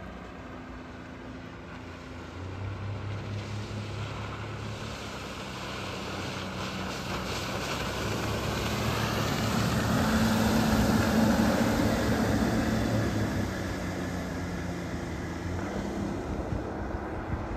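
Small outboard motor on an inflatable boat running at speed as it passes, growing louder to a peak about ten seconds in and then fading, with spray hissing off the hull.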